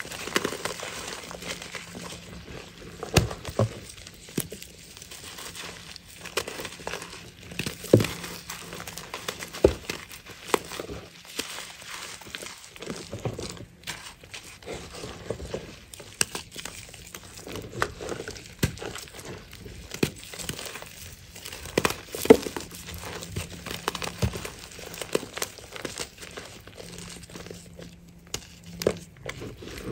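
Hands crushing and crumbling a large block of reformed chalk: a continuous dry crunching and crackling, with frequent sharp snaps as chunks break apart.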